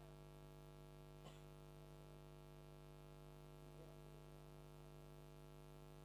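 Near silence: a faint steady electrical hum, with one faint click about a second in.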